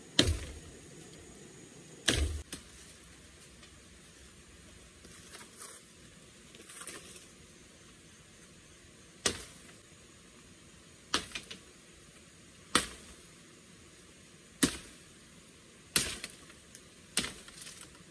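Machete chopping at bamboo stalks and undergrowth: about ten sharp strikes, spaced irregularly a second or two apart, with a brief rustle of vegetation between them.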